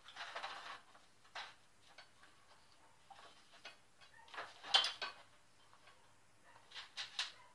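Scattered light clicks and clatters of an angle grinder's plastic housing being handled and small tools and screws being picked up and set down on a sheet-metal workbench, the loudest clatter about five seconds in and a quick pair near the end.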